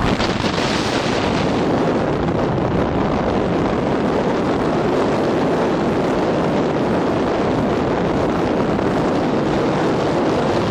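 Gale-force wind buffeting the microphone: a loud, steady rushing roar.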